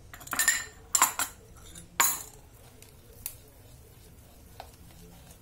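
Kitchenware clattering: three sharp knocks and scrapes of bowls and a wooden spoon against a stainless mixing bowl in the first two seconds, then a few faint taps as cake batter is stirred.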